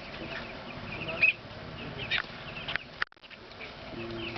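A flock of broiler chicks peeping: many short, high chirps overlapping, with a few louder ones standing out, cutting out briefly about three seconds in.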